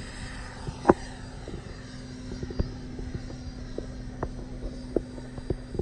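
Electric ducted-fan RC model F/A-18 jet flying overhead after take-off, a steady drone as it climbs away. A few sharp clicks come over it, the loudest about a second in.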